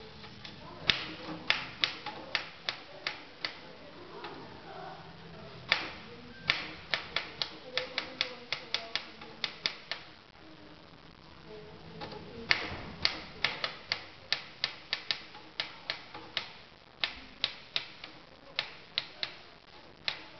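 Typewriter keys being struck in two runs of quick, uneven clacks, with a pause of about two seconds about halfway through.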